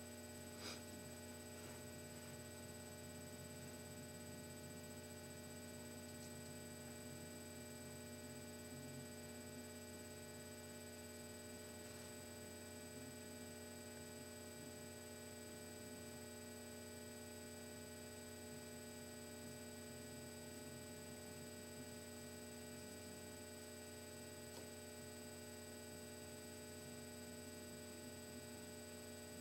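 Steady electrical mains hum with several fixed tones layered on it, unchanging throughout; one faint click about a second in.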